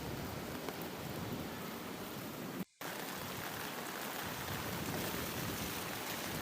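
Steady heavy rainfall, an even hiss of rain hitting surfaces. The sound cuts out for a split second about two and a half seconds in, then carries on unchanged.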